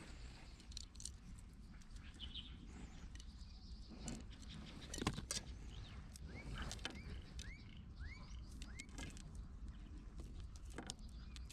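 Outdoor ambience of scattered clicks and rustling, with a bird chirping a quick run of five or six short notes past the middle.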